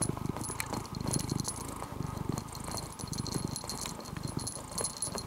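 Domestic cat purring close to the microphone, a low rumble rising and falling in uneven waves, with light clicking over it.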